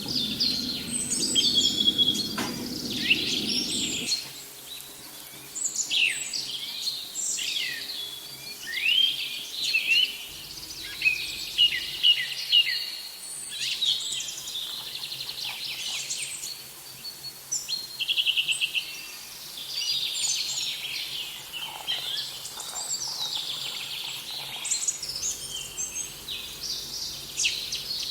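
Several small songbirds chirping and singing at once, a busy dawn chorus of quick high chirps, trills and short whistled glides. A low hum underneath stops abruptly about four seconds in.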